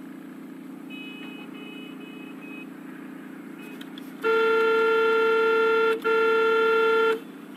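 Car horn sounding two long steady blasts with a brief break between them, far louder than the low steady drone of a car's cabin underneath. A faint short beeping comes about a second in.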